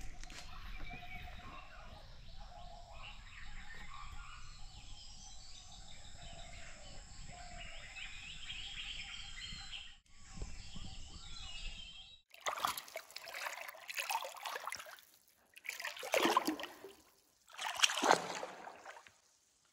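Forest ambience with birds calling for about the first ten seconds. Then, after a short break, four loud rushing bursts of about a second each.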